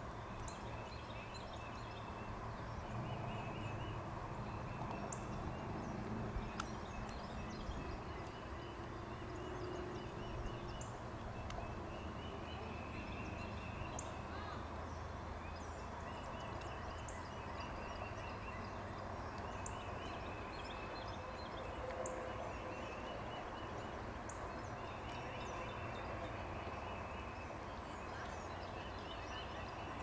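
Outdoor ambience of wild animal calls: a short rattling trill repeats every two to three seconds, with brief high chirps scattered between, over a steady low hum.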